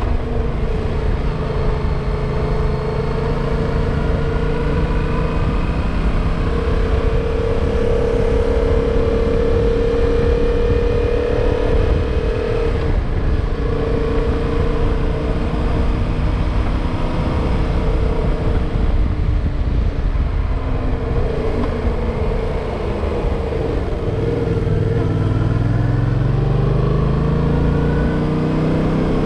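Yamaha motorcycle engine running under way, with wind noise on the microphone. Near the end the engine note drops, then rises steadily as the bike accelerates again.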